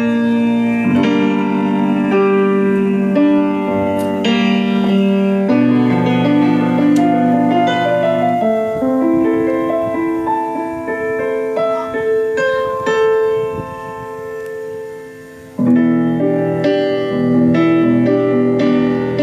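Music: an instrumental keyboard passage of sustained, piano-like chords that change every second or two. It dies down over a few seconds before coming back in suddenly at full level.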